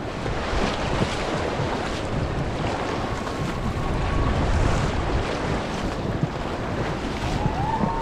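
River water rushing and splashing around a whitewater raft, with wind buffeting the microphone.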